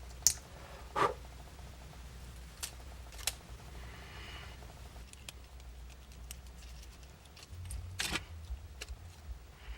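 Small clicks and taps from a tool and small camera parts being handled and worked loose, scattered and irregular, with the loudest clicks near the start and about eight seconds in.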